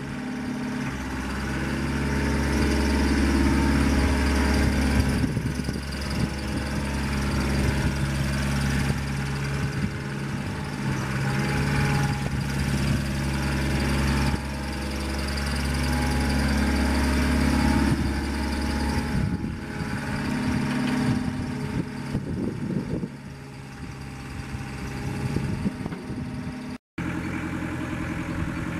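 Kubota KX040 mini excavator's diesel engine running while the machine works its hydraulics and slews. The engine pulls harder and louder for most of the first twenty seconds, then eases towards a lower, steadier run, with a momentary break near the end.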